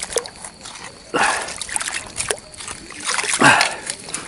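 Feet wading through shallow seawater, with splashing steps; the biggest splashes come about a second in and about three and a half seconds in.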